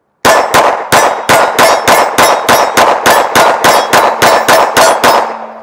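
IWI Masada 9mm semi-automatic pistol fired in rapid, steady succession, about four shots a second for around five seconds, with some twenty sharp reports.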